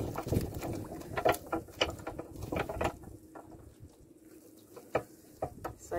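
Wet cast net being hauled and handled in a wooden canoe: scattered light taps and clicks of the net and its weights against the boat, thick at first and thinning out about halfway.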